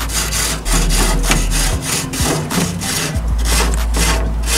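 Grill brush scrubbing the metal grate of a hot charcoal grill in quick back-and-forth strokes, a few a second, cleaning it so the fish won't stick.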